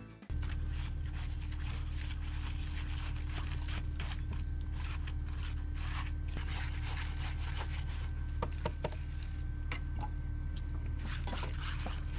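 Irregular scraping and clicking, like hand tools working gritty material, over a steady low machine hum.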